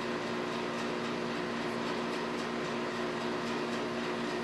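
Steady machine hum with a few even tones, unchanging throughout.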